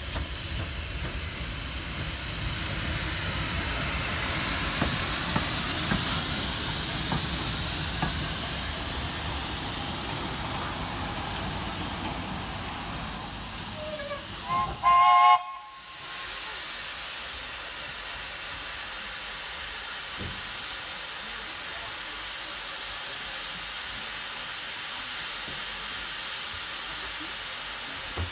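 Small steam tank engine 72 'Fenchurch', an LB&SCR Terrier, with steady steam hiss and a low rumble as the train runs in with its coach. About halfway through come a few short whistle blasts, and after them the engine stands hissing more quietly.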